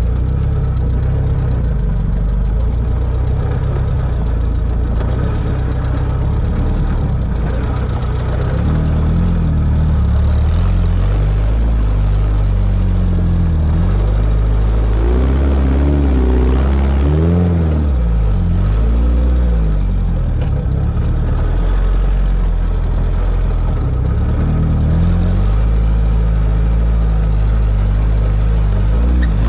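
Sporting trials car engine running under load through a hillside section, its pitch rising and falling repeatedly as the throttle is worked, with the biggest swings about halfway through.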